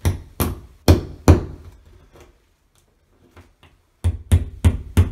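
Claw hammer tapping a drywall anchor into drywall: four sharp taps, the third and fourth the loudest, then a pause of about two and a half seconds, then four quicker taps.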